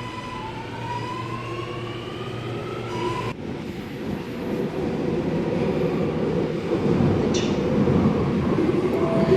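Sydney Metro Alstom Metropolis train's traction motors whining, the whine rising in pitch as the train gathers speed. About three seconds in the sound changes abruptly to a rumble of a train on the rails that grows louder.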